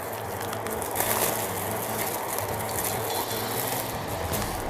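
Rustling and crinkling as a packaged lab coat is handled, with irregular scratchy ticks over a steady low hum.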